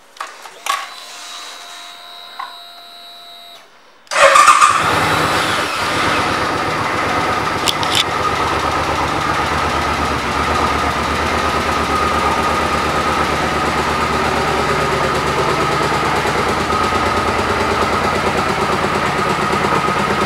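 A 2009 Suzuki Boulevard M50's 805 cc V-twin starts about four seconds in after a few faint clicks, then settles into a steady idle.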